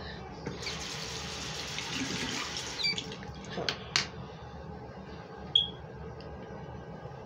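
Sink tap running for about two seconds, then stopping, followed by a few small clicks and knocks.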